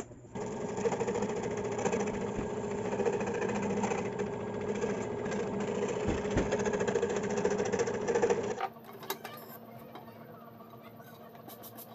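Scroll saw running steadily, its reciprocating blade cutting through a quarter-inch wood board. About three-quarters of the way through, the sound cuts abruptly to a much quieter one.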